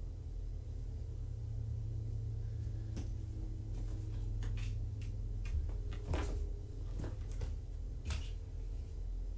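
A kitten climbing a padded floor chair and jumping onto a cat-tree post, its claws and landings making a run of irregular clicks and knocks that starts about three seconds in, over a steady low hum.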